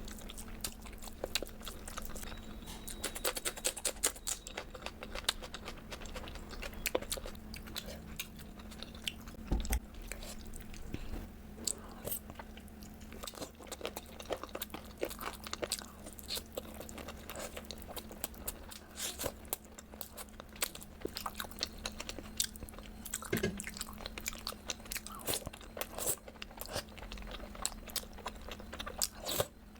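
A person chewing and biting crunchy food close to the microphone, a dense run of sharp crackles throughout, over a faint steady hum.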